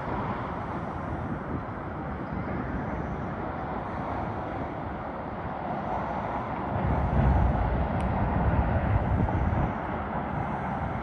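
Steady rumble of a freight train crossing a river bridge, heard from a distance. It grows louder for a few seconds past the middle.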